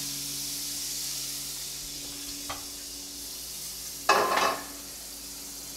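Food sizzling steadily in a frying pan on the stove, with a short louder clatter of a utensil against the pan about four seconds in.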